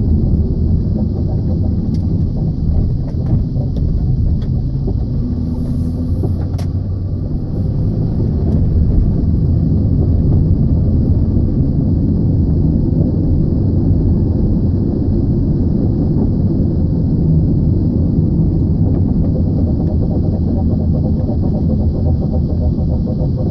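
Steady low rumble from a moving car's wheels: the tire or brake noise the owner is trying to track down.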